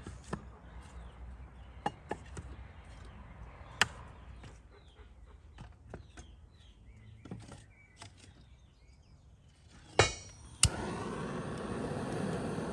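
Split firewood pieces knocked and set down against brick and concrete, a scatter of sharp wooden knocks. About ten seconds in a butane hand torch clicks as it is lit, then burns with a steady hiss.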